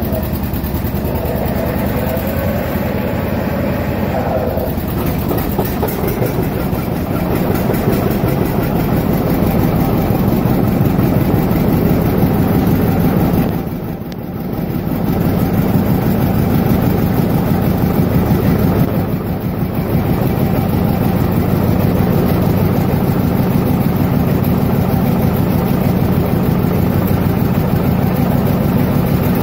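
Tractor engine running steadily, dipping briefly in level about halfway through and again a few seconds later.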